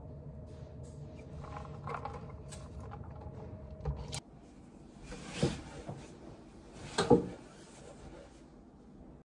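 Things being handled and set down on a wooden desk: a light knock about four seconds in, then two sharp thumps about a second and a half apart, the second the loudest. A low steady room hum runs under the first half and stops.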